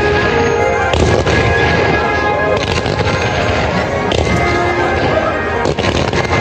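Fireworks display: a string of sharp bangs and crackles from bursting shells, roughly one every second, over continuous music.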